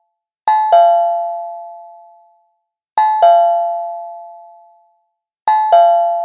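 Cartoon doorbell sound effect: a two-note ding-dong chime, a higher note then a lower one, sounding three times about two and a half seconds apart. Each chime rings and fades away.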